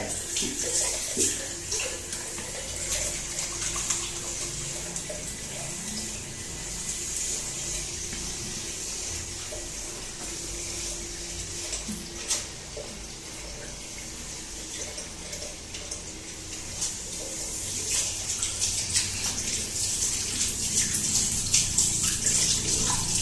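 Hands being washed with soap under a running tap: a steady hiss of water into a sink, growing louder and more broken up over the last few seconds.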